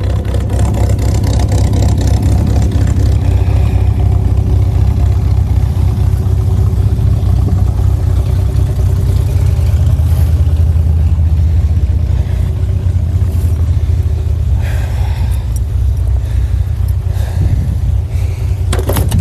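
Pickup truck engine idling steadily in the cold after a cold start, a low even rumble.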